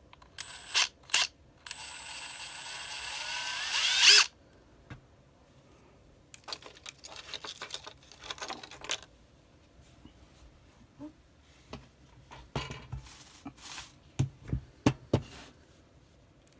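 Makita TD171D 18V cordless brushless impact driver running after repair. Two short trigger blips come first, then a run of about two and a half seconds that rises in pitch and grows louder as the trigger is squeezed, and stops abruptly. Handling clatter and a few clicks follow.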